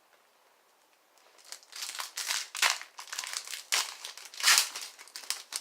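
A plastic trading-card pack wrapper crinkling as it is handled and torn open: a quick, irregular run of crinkles starting about a second in, loudest near the end.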